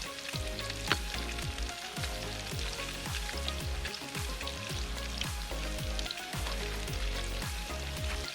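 Crappie frying in hot peanut oil, a steady crackling sizzle with small pops, over background music with a steady bass beat.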